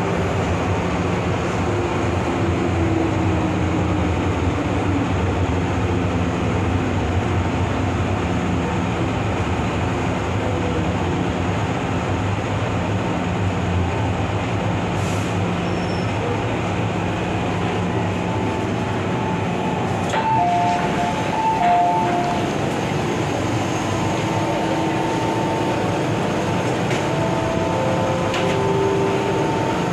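MTR Island Line M-Train electric multiple unit running, heard on board: a continuous rumble of wheels and running gear. A few short whining tones come in the second half.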